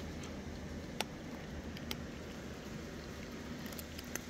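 Cats crunching dry kibble from a metal bowl: a few sharp, crisp crunches spaced about a second apart, over a steady low hum.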